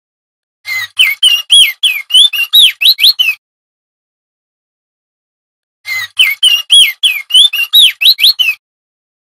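Male crested darkeye (opior jambul) singing: two loud bursts of song, each about three seconds of rapid, sharply rising and falling whistled notes, with a clean silence of about two seconds between them.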